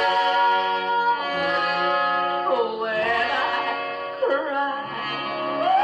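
A 1950s pop record playing on a Wurlitzer jukebox: a voice holds long notes that slide up and down between pitches over the band's accompaniment, with the dull, trebleless sound of an old recording.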